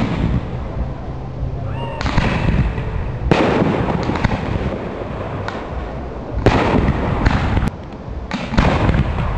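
Aerial firework shells bursting overhead: a string of sharp bangs a second or two apart, each trailing off in a fading rumble.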